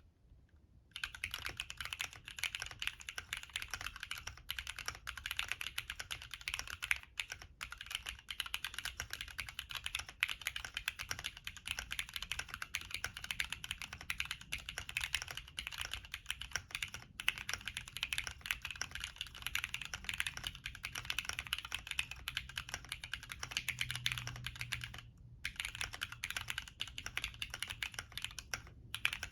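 Typing on a Cannonkeys Bakeneko60 mechanical keyboard with lubed Cherry MX Black linear switches and Cherry-profile PBT keycaps, its case dampened with polyfill. A fast, continuous run of keystrokes starts about a second in, with two brief pauses near the end.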